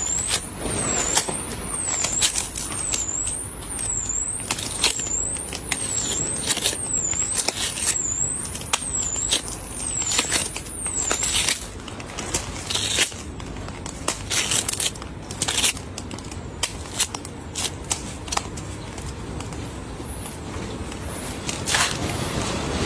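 Small watermelon being broken open by hand: the rind cracking and the crisp, juicy flesh crunching and tearing apart in a run of sharp, irregular cracks.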